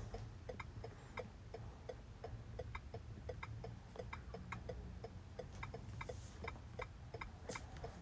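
Faint, steady ticking of a car's hazard-light flasher, about three ticks a second, heard inside the cabin.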